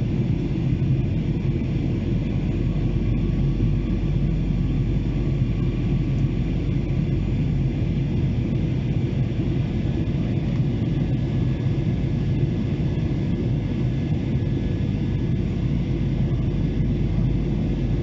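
Steady cabin noise of a Boeing 737-800 in flight, heard from a seat over the wing: its CFM56 turbofan engines and the rushing air make an even low rumble, with a faint steady hum on top.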